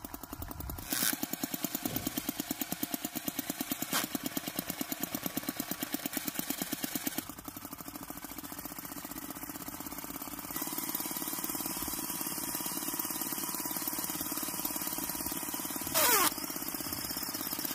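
Homemade scale-model tractor running under load as it drags a tyre through sand, with a rapid, even chugging like a small engine. The chugging changes its pattern about seven seconds in, and a short loud sound that falls in pitch comes near the end.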